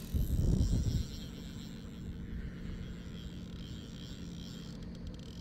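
A boat's motor running with a steady low rumble and hum. A louder, low surge of noise comes in the first second.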